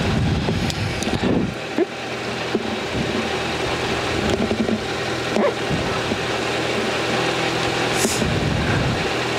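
Rally car's engine idling steadily, heard from inside the cabin, with a few low rumbles and knocks.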